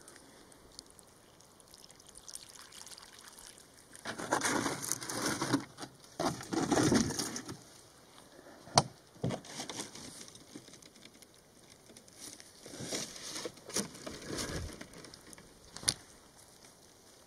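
Water poured from a plastic jug into a tarantula burrow to flush the spider out, splashing and gurgling in irregular bursts for a few seconds. Later come a few sharp taps and some rustling as hands move in the gravel at the burrow.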